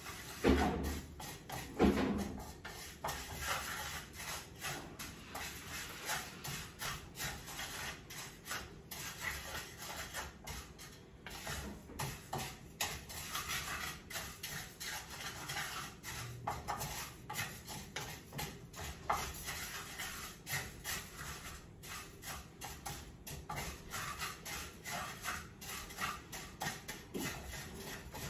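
Wooden spatula stirring dry rice grains as they toast in a frying pan, an irregular run of scraping and small clicks; the rice is nearly golden. Two louder knocks in the first couple of seconds.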